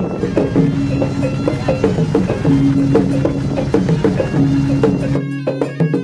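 Background music in a traditional style: held low drone notes under a steady percussion beat, with the deep bass dropping out about five seconds in.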